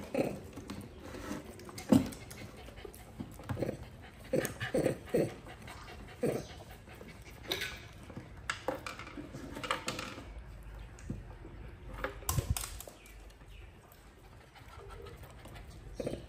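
An animal's quick panting breaths mixed with scattered short knocks and clicks.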